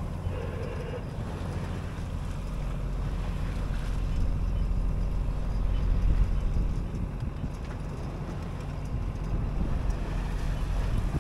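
Wind buffeting the microphone on a yacht under way, over a low steady drone and the wash of water along the hull.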